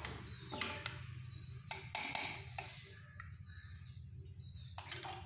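Spatula stirring a thick chicken curry in a stainless steel pot, scraping and knocking against the pot's side in short sharp clicks, loudest about two seconds in and again near the end, over a steady low hum.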